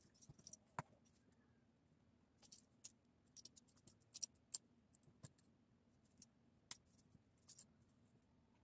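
Small plastic Lego pieces clicking against each other as hands sort through a loose pile of them: faint, irregular light clicks, busiest in the middle.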